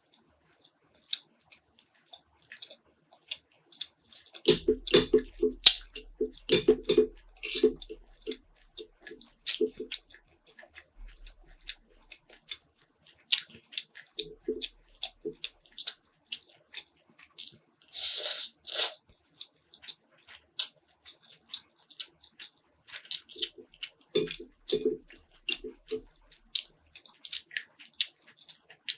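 Close-miked chewing of spicy instant noodles and fried pork: wet smacking and many small mouth clicks, heaviest for several seconds near the start and again near the end, with a louder hissing burst about eighteen seconds in.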